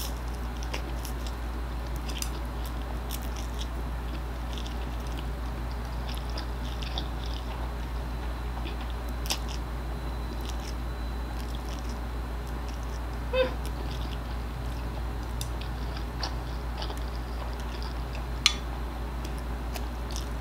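Close-up mukbang eating sounds: a mouth chewing and sucking in stir-fried instant noodles (Pancit Canton) from chopsticks, with many small wet clicks over a steady low hum. A short squeak comes about 13 seconds in, and a sharper click near the end.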